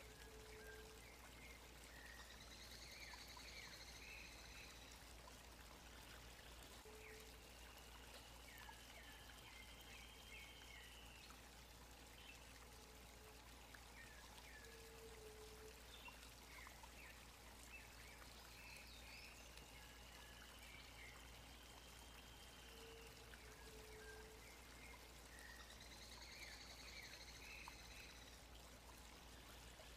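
Faint steady rushing like a stream, with faint bird calls over it: drawn-out arched whistles and short chirps that come back in the same order every twenty seconds or so.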